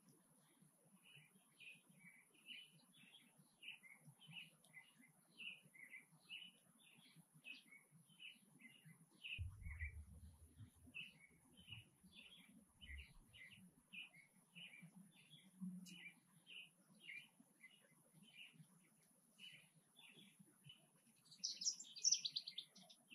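A small animal calling with a steady series of short, high chirps, about two or three a second, and a louder flurry of higher chirps near the end. A brief low rumble comes about ten seconds in.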